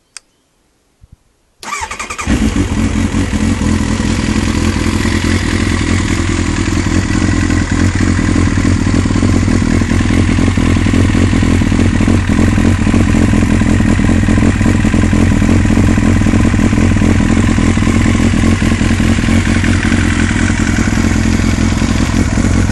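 Kawasaki ZX-9R's inline-four engine starting: a click, then it catches about two seconds in and settles into a steady idle through a Viper titanium slip-on exhaust.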